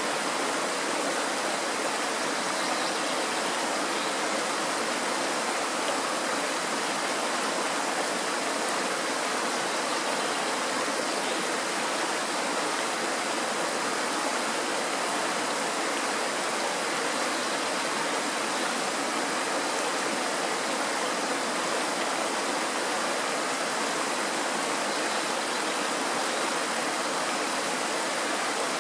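Mountain stream rushing and splashing over rocks in a small cascade, a steady, unbroken sound.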